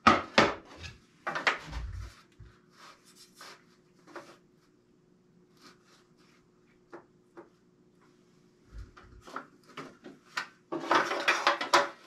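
Wood and the metal rip fence being handled on a benchtop table saw that is not running: a few sharp knocks in the first two seconds, scattered light clicks, then about a second of sliding and rattling near the end as the fence is adjusted.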